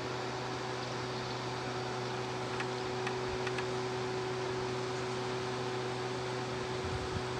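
Steady machine-like hum: a constant low drone with a few fixed higher tones over an even hiss. A few faint, short high ticks come around the middle.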